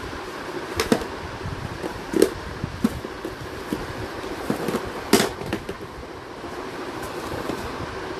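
Handling of embroidered box clutch bags: a few sharp clicks and knocks from the bags and their metal frames, the loudest about five seconds in, over a steady background hum.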